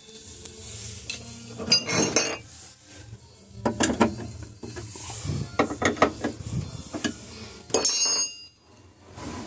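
Metal parts and tools clinking and rattling in four short clusters, about two seconds apart.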